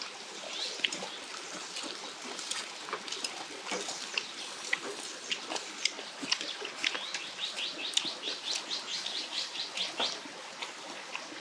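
Small birds chirping, with a fast run of chirps from about seven to ten seconds in. Underneath are scattered small clicks and pops from the charcoal grill and the utensils.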